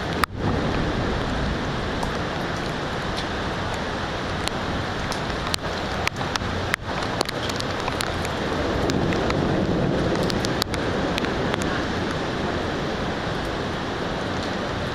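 Heavy rain falling steadily during a thunderstorm, with a scattering of sharp ticks. The rain noise swells and deepens for a couple of seconds near the middle.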